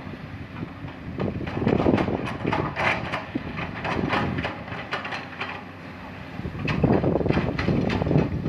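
Heavy earthmoving equipment working rock: a machine rumble under dense, irregular clattering and knocking. The clatter comes in two louder spells, one starting about a second and a half in and another near the end.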